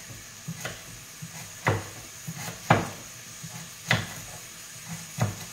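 Kitchen knife cutting celeriac on a wooden cutting board, the blade knocking on the board about half a dozen times at an uneven pace.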